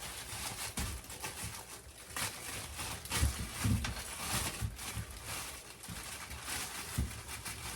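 Kitchen handling noises as potatoes are readied for cutting: irregular knocks and light thuds, with rustling between them.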